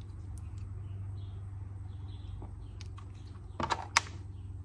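Small metal clicks from handling a Shimano Deore rear derailleur as its clutch friction is adjusted: a few faint ticks, then a short cluster of clicks and one sharp click about four seconds in, over a steady low hum.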